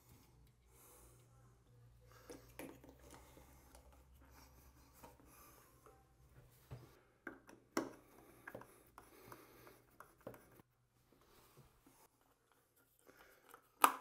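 Faint handling and tool noises as a chrome shower wall fitting is fitted over its pipe and tightened with a screwdriver against the tile: scattered light clicks, knocks and scrapes, with one sharp click near the end.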